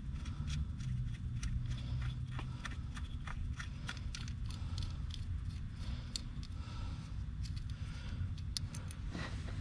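Irregular clicks and light metal-on-metal ticks of a ratchet with a 10 mm socket undoing the bolts that hold an ignition coil pack, over a steady low hum.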